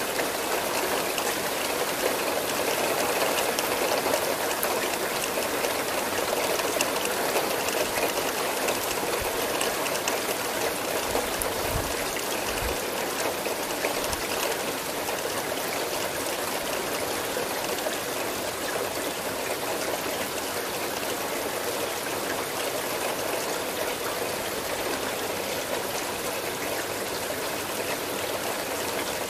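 Steady rain, an even hiss of falling water with a little trickling, and a few faint low thuds about halfway through.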